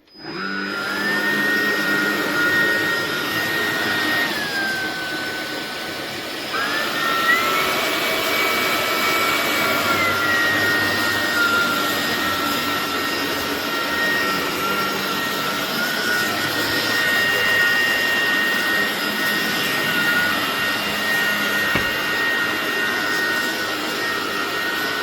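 Hoover ONEPWR WindTunnel Emerge cordless stick vacuum running with a steady high whine. The pitch dips about four seconds in, rises again around six and a half seconds, and settles back down around ten seconds.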